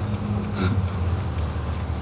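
Steady low hum with a brief light clink about half a second in, from metal parts handled inside the engine's open timing area.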